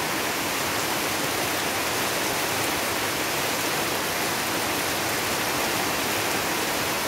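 Heavy monsoon rain falling steadily, a dense, even hiss.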